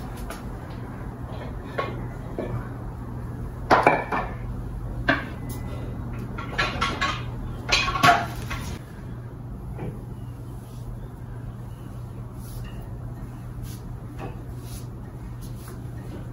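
Steel jack stands being handled and pulled out from under a boat trailer: a handful of sharp metallic clanks and rattles in the first half, the loudest about four and eight seconds in, then only faint knocks.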